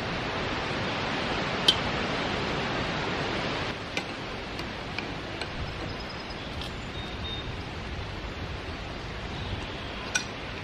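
Metal hand tools clicking and clinking on the rusty pipe and float rod of a boiler water-level control as it is taken apart: one sharp snap about a second and a half in, scattered lighter clicks, and another sharp click near the end, over a steady hiss that drops a little about a third of the way in.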